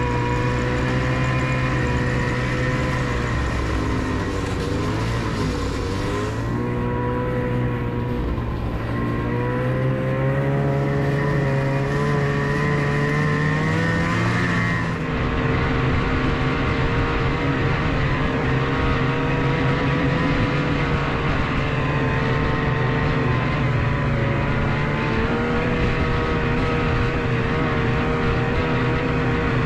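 Snowmobile engine running steadily under way, heard from on board the moving sled. Its pitch dips and comes back a few seconds in, climbs for several seconds, then holds fairly even through the second half.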